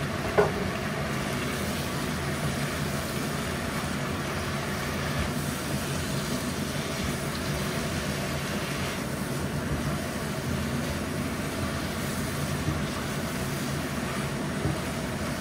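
Steady hiss and hum of a wok cooking on an induction hob, with a spatula stirring and scraping tofu skin and peppers in the nonstick wok. One sharp metallic clink about half a second in.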